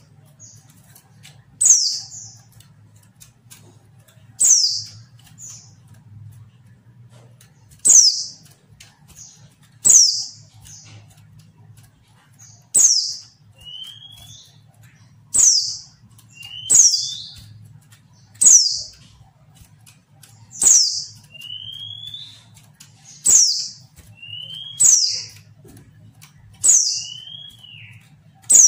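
Female white-eye (pleci) giving a sharp, high call that sweeps downward, repeated about every two seconds, with a softer, lower rising note after several of the calls from about halfway. This is the female's call that keepers play to prompt lazy or silent males to answer and sing.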